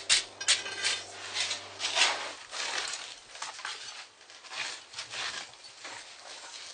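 Bellows pumping air into a bloomery furnace: rhythmic whooshing puffs, about two a second, growing weaker near the end.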